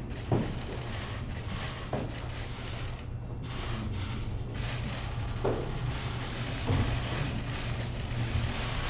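Steady low room hum with a few short soft knocks and rustles of movement, four of them spread through the stretch.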